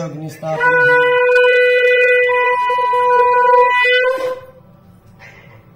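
Conch shell (shankha) blown in one long, steady note, sounded as the puja fire is lit. The note starts about half a second in and stops after roughly three and a half seconds, with a brief waver just before it ends.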